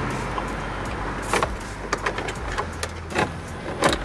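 Handling noise from wiring and plastic fittings being worked on a car's trunk lid: about five short clicks and knocks, spread out, over a low steady hum.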